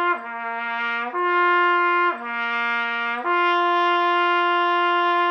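Trumpet playing a slurred lip-slur exercise on the open horn, no valves pressed, moving between G and the C below it: low C, up to G, down to C, then a long held G. The notes are joined by air alone, each change a smooth slur without a break in the tone.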